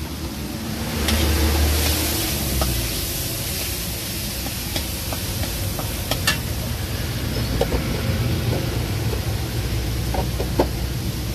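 Metal spatula and spoon scraping and clinking against a steel wok while a spice paste is stirred, in scattered sharp clicks. Under it, a steady low rumble that swells briefly about a second in.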